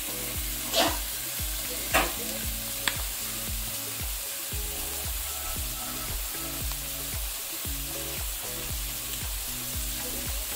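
Onions and mushrooms sizzling steadily in a hot frying pan, with a few sharp taps in the first three seconds. A soft backing tune plays underneath.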